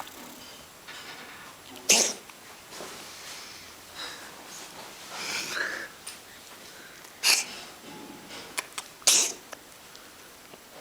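Domestic cat sneezing three times in short, sharp sneezes: once about two seconds in, then twice close together near the end.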